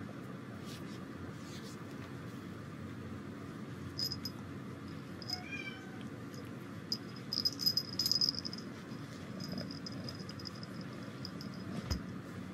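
A cat gives a short, faint meow about halfway through, while a small bell on a cat's collar jingles in brief high bursts, most strongly in the second half, over a steady low room hum.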